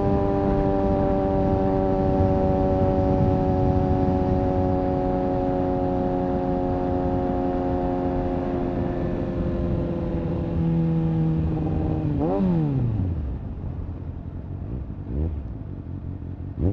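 Kawasaki ZX-6R inline-four motorcycle engine running at a high, steady note that sinks slowly for about twelve seconds. It then gives one sharp rev blip up and back down, followed by quieter running with a couple of short blips near the end.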